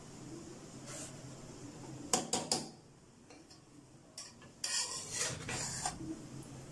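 Metal spoon stirring and turning biryani rice in a pressure cooker pot, with a few quick clinks against the pot about two seconds in and a spell of scraping and rustling around five seconds.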